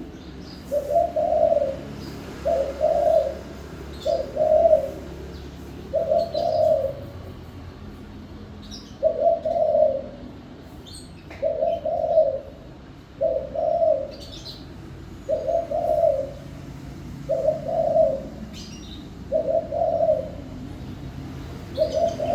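Spotted dove (chim cu gáy) cooing: a string of low, mellow coos, about one every two seconds, with a short break about eight seconds in. Faint high chirps from small birds sound between the coos.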